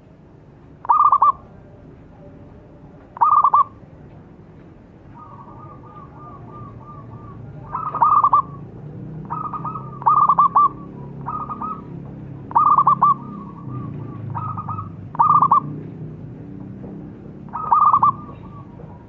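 Zebra dove cooing: short, loud cooing phrases repeated every two seconds or so, with a quicker rippling run of soft notes a few seconds in.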